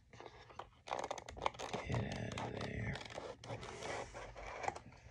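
Small cardboard model-car box being handled and opened, and its clear plastic inner tray slid out: a run of scrapes, rustles and small clicks starting about a second in.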